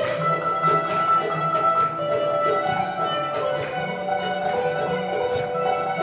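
Turkish classical (art music) ensemble playing an instrumental passage in makam Muhayyer Kürdi: plucked oud and kanun notes under a held, bowed-string-like melody.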